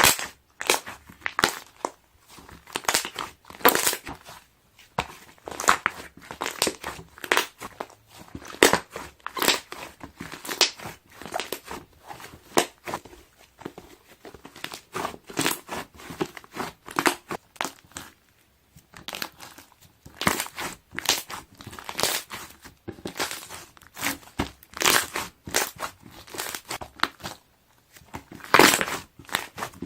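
Airy slime being pressed by hand, its trapped air bubbles popping in rapid crackling clicks. The pops come in irregular bursts with short pauses between them.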